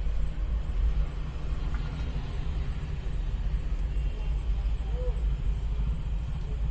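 A vehicle engine idling: a steady low rumble with a fast, even pulse.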